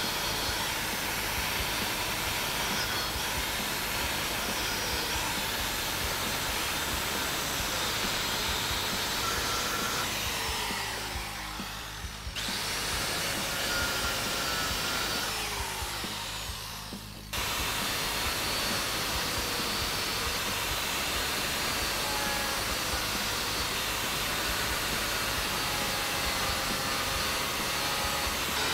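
DeWalt angle grinder with a cutting wheel cutting through the rusted steel of a 1993 Ford Bronco's factory coil spring tower, a steady grinding whine of the wheel biting into metal. Twice, briefly, the grinding falls away before it cuts in again.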